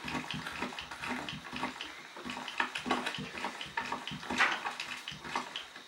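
Foley footsteps performed on a stone surface: an uneven run of short scuffs and taps.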